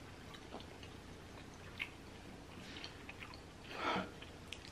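A person chewing soft, chewy rice cakes (tteokbokki) with melted cheese, mouth closed: faint wet mouth sounds and small clicks, with a louder short sound about four seconds in.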